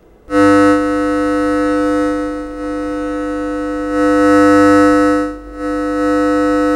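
A steady, buzzy square-wave tone from a test oscillator, played through a loudspeaker by a simple BJT differential-pair voltage-controlled amplifier. It starts just after a brief cut as the waveform is switched over from a triangle wave. Its loudness rises and falls a few times, with two short dips.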